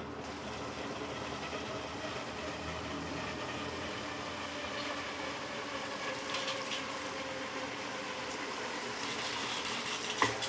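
Electrolux LTC15 top-loading washing machine running mid-cycle, with steady water churning over a motor hum. A single sharp knock near the end.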